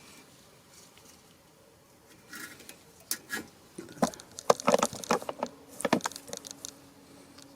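Light metallic clicks and clinks of brake pad hardware clips being handled and pressed into place on a rear brake caliper bracket. They come in a quick, irregular run after about two seconds of quiet.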